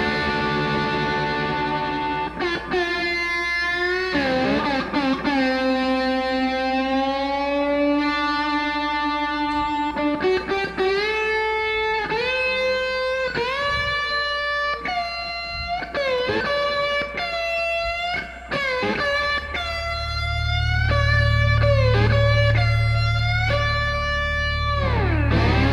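Electric guitar playing a melodic lead line of held notes with bends and slides. A steady low bass part joins about three-quarters of the way through.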